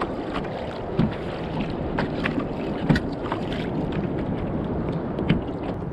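Wind on the microphone and water around a kayak hull, with several short, sharp clicks and knocks scattered through.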